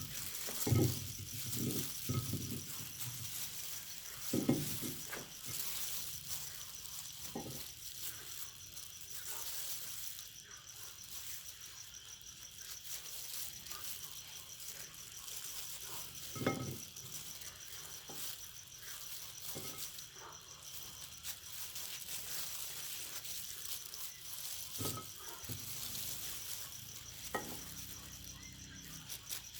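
Meat grinder working bananas: soft rattling with scattered dull knocks over a steady faint hiss.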